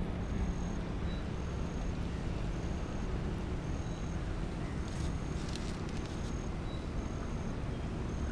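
Outdoor lakeside ambience: a steady low rumble, with a short, high chirp repeating about once a second. A few faint clicks come about five seconds in.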